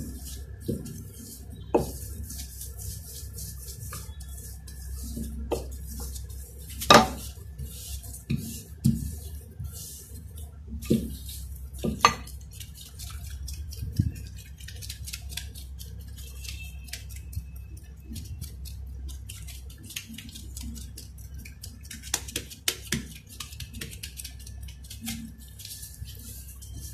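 Wooden rolling pin working dough on a silicone baking mat, with scattered knocks and clicks as the pin is handled and set down, the loudest about 7 and 12 seconds in, over a low steady hum.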